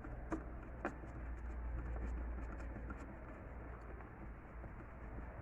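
Faint scratching and two sharp clicks from a screwdriver and wire being worked loose at a fridge's 12-volt heating-element terminal, over a low steady hum.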